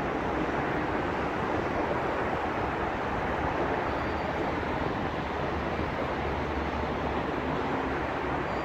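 Steady rumbling noise of road traffic on the bridge overhead, with no distinct events.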